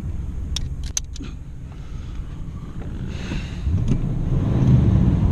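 Car keys jangle and click at the ignition. About three seconds in, the car's engine cranks and catches, then runs loudly.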